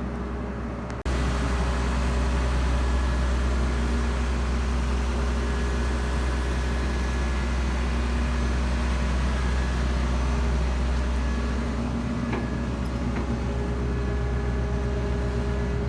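A 1992 John Deere 9400 combine running steadily, its diesel engine giving a constant low hum and rumble. It gets louder abruptly about a second in.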